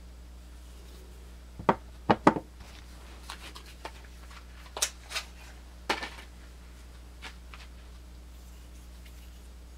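Handling noise from small hard objects. Three sharp clicks come close together about two seconds in, then a few lighter taps and clicks, all over a steady low electrical hum.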